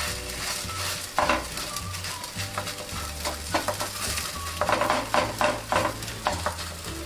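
Fingers patting and pressing soft thalipeeth dough flat on a hot, oiled non-stick pan, making a string of soft irregular dabs over a faint sizzle of oil.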